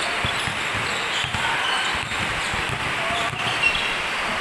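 Basketball dribbled repeatedly on a concrete court, a series of short thuds over a steady hiss.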